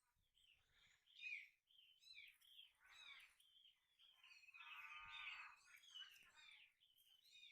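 Birds chirping: a string of short, quick calls with no pause, and one longer, louder call about five seconds in.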